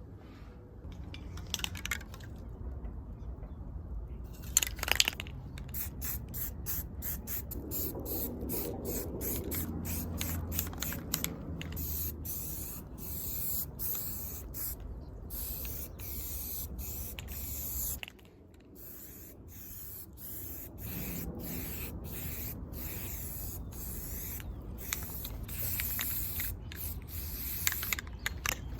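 Aerosol spray-paint can spraying a bike frame in many short hissing bursts with brief gaps between them.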